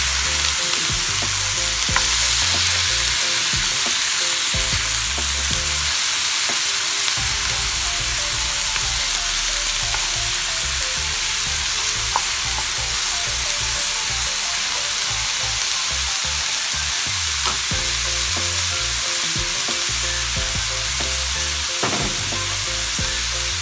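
Cubed bottle gourd (upo) sizzling in hot oil in a frying pan, stirred with a wooden spatula that clicks and scrapes against the pan now and then.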